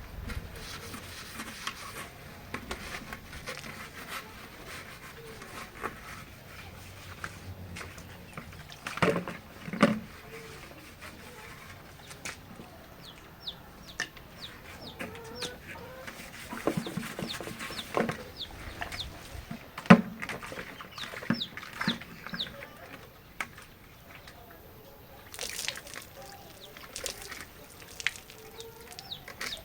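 Domestic hens clucking in a flock, with scattered short high calls and irregular sharp knocks and clatter, loudest about nine to ten seconds in and again near eighteen to twenty seconds.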